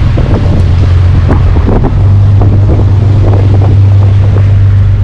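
Barge's engine running with a steady low hum, growing a little louder about two seconds in, under wind buffeting the microphone.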